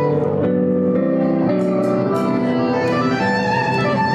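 A Roland digital piano playing chords with a sustained, violin-like melody from a Roland Aerophone digital wind instrument.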